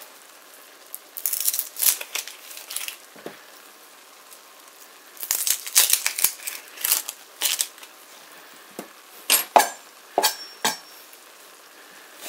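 Dry onion skin crinkling and tearing in short bursts as it is peeled off a halved onion. A few sharp knocks, a knife on a plastic cutting board, come about nine to ten seconds in.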